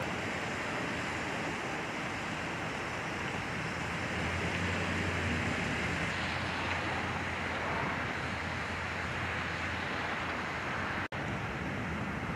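Steady rushing outdoor noise with a low engine hum from about four seconds in, typical of a vehicle idling nearby. The sound cuts out for an instant near the end.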